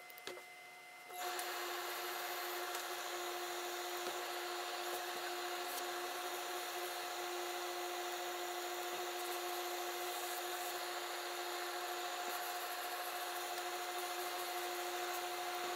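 A tailor's steam-pressing setup running while a hose-fed steam iron presses cloth. It makes a steady hiss with a constant two-note hum, starting suddenly about a second in and holding evenly until it cuts off at the very end.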